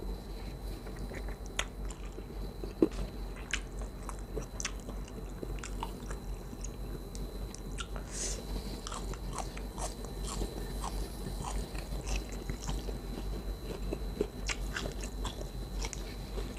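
A person chewing and biting food close to the microphone: irregular wet mouth clicks and small crunches, with one sharper click about three seconds in. A faint steady high tone and low hum run underneath.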